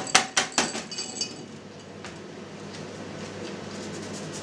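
Four quick knocks of a cheese mould against a metal tray, with a short metallic ring after them, as the mould is knocked to free the pressed cheese head inside.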